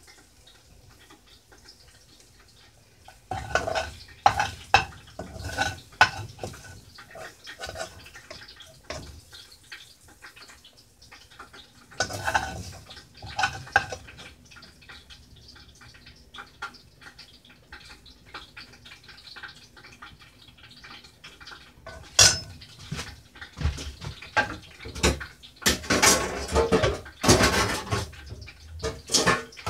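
A cooking utensil scraping and clinking against a frying pan in bursts of rapid knocks: a few seconds in, again around the middle, and most busily near the end.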